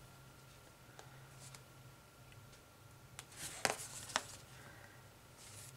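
Fingernails picking and scratching at the peel-off paper backing of a sticky circle with batting: faint scratches and scattered clicks, with a cluster of sharper clicks about three and a half seconds in and a short papery rustle near the end.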